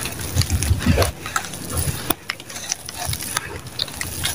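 Dry sand-cement clumps crushed and crumbled in the hands: many small crunching crackles over a gritty hiss of grains pouring through the fingers, with a few soft low thuds in the first second.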